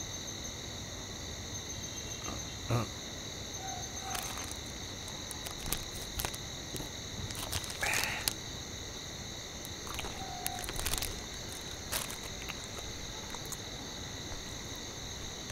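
Night ambience of crickets trilling steadily, a continuous high-pitched chirr, with a few faint scattered clicks and small handling sounds over it.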